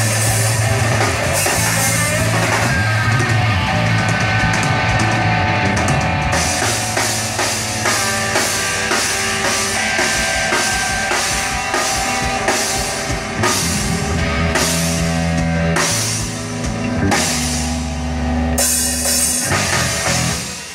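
Live rock band playing: electric guitars, bass guitar and a drum kit, with steady drum strikes under sustained guitar notes. The music stops right at the end.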